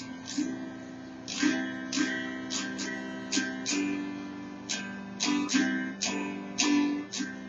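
Acoustic guitar strumming chords, about two or three strokes a second.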